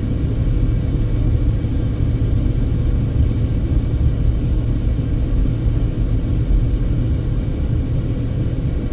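Steady low rumble of road and engine noise inside a moving car's cabin, with a faint steady hum above it.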